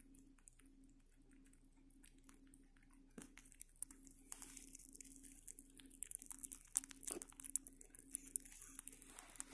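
A rabbit chewing and biting into a banana right at the microphone: a run of small, quick clicks that starts about two seconds in and gets busier after about four seconds.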